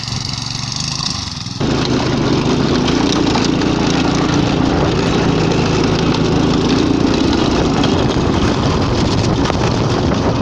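Small go-kart engine running as the kart drives over snow. About a second and a half in, the sound jumps louder and becomes a dense rattle over the engine drone, as heard from the driver's seat.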